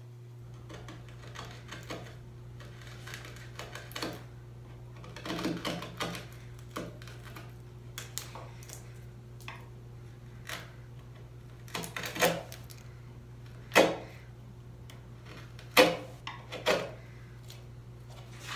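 Hand chisel cutting a hinge mortise in wood: scattered light paring and scraping cuts with several sharp knocks, the loudest in the second half.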